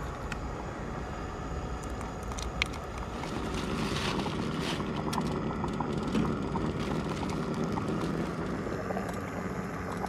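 Steady roar of a gas canister camp stove burning under a pot, with crinkling of plastic food packets and small clicks as sauce and noodles go in.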